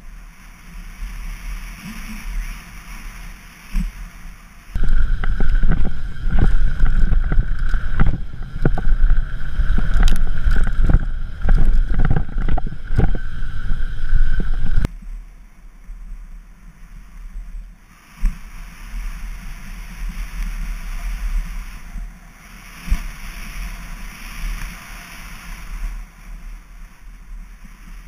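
Mountain bike running fast down a dirt and rock trail: tyres rolling and wind rushing over the helmet- or chest-mounted action-camera microphone. For about ten seconds in the middle it gets much louder and rattlier, with many knocks from bumps and a steady high whine, then drops back to a quieter rush.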